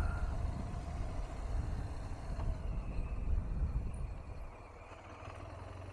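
BMW R1200 GS's boxer-twin engine running at low speed, a low pulsing rumble that quietens about four and a half seconds in.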